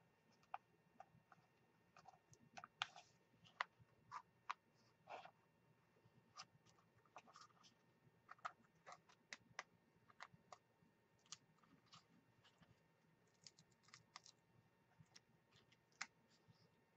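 Faint, irregular clicks and scratches of fingernails picking at a paper sticker sheet, trying to lift and peel off stickers.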